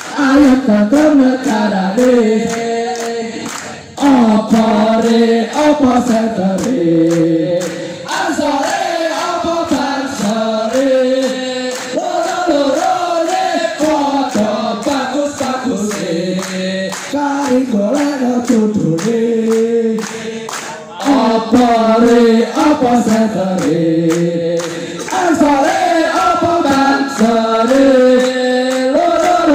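A large group of men singing a song together, with hand clapping in time to the song.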